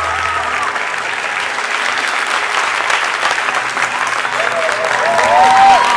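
Audience applauding, with voices calling out over the clapping near the end.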